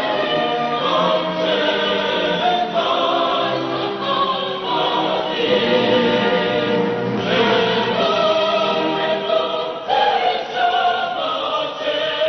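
A choir singing in held chords, the notes changing every second or so.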